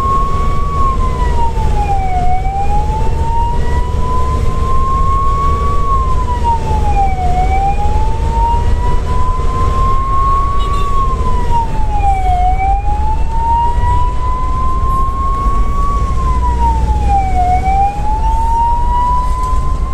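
Ambulance siren heard from inside the cab, wailing: a tone that climbs slowly for about four seconds, then drops quickly, repeating about every five seconds, over the low drone of the engine and road.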